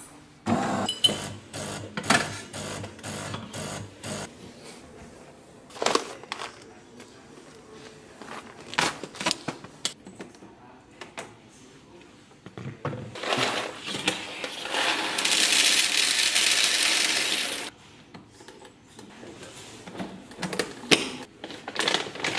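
Coffee-making in a small kitchen: an automatic espresso machine runs with a steady hum at the start, among scattered clicks and taps of handling. Just past the middle, a loud, even rush of noise lasts about three seconds and cuts off suddenly.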